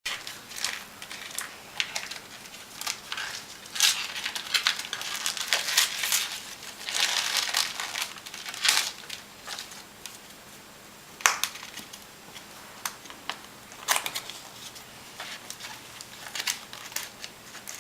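Gift wrapping paper crinkling and rustling as a present is unwrapped, in irregular spells of sharp crackling.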